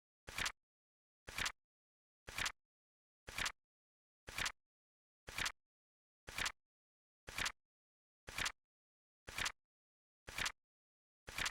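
Flip-clock card flap clacking once a second, a short two-part click-clack each time, evenly spaced, with silence between.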